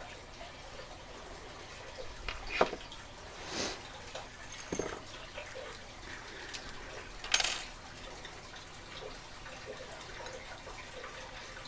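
Padlocks and lock-picking tools being handled: a few scattered metal clicks and small rattles, the loudest about seven seconds in.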